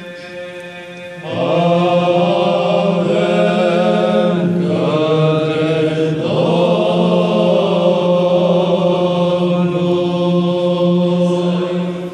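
Orthodox Byzantine chant: the great responses of the Paschal liturgy sung by a men's monastery choir over a steady low ison drone, the drone loud and close in the recording. The drone holds throughout, and the melody voices come in strongly just over a second in.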